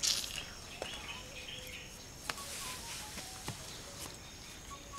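Rural outdoor ambience: a steady faint hum of insects with a few short bird chirps. There is a brief rustle at the very start and a few light clicks.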